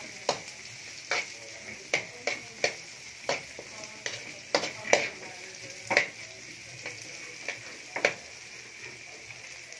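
Garlic, ginger and onion sizzling in hot oil in a pan as they are sautéed, with a steady hiss. A stirring utensil knocks against the pan irregularly, roughly once or twice a second.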